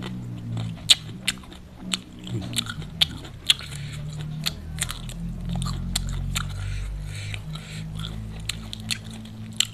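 Close-up crunching and chewing of raw green vegetable dipped in sambal, with many sharp, irregular crunches.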